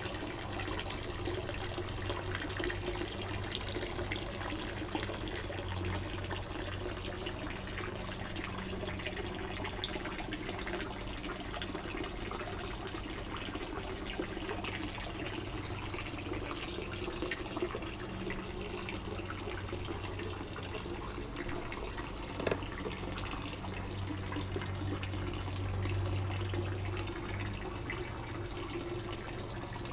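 Garden pond's dolphin statue fountain running, a steady splash and trickle of water falling back into the pond, with a steady low hum underneath.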